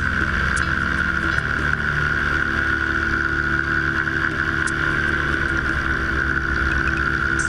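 Ultralight trike's engine droning steadily in flight, with wind rushing over a helmet-mounted camera.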